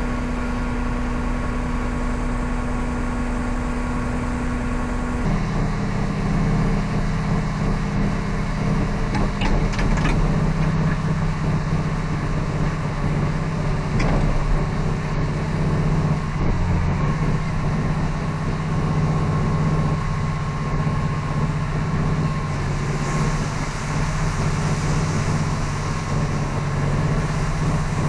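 Large diesel farm-machinery engine running steadily. Its note shifts abruptly about five seconds in.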